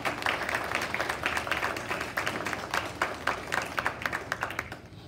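Audience applauding, many hands clapping at once, the clapping dying away near the end.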